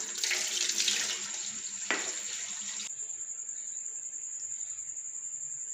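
Tap water running into a glass tumbler held under the faucet over a stainless-steel sink, splashing as the glass overflows. There is a single knock about two seconds in, and the water stops about three seconds in.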